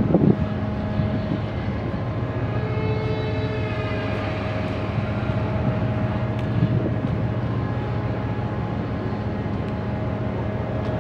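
Giant floating crane's hanging hook gear and wire-rope rigging giving a long, drawn-out metal creak, a 'gii' squeal that rises and falls from about two seconds in. Under it runs a steady low machinery hum, with a brief low thump at the very start.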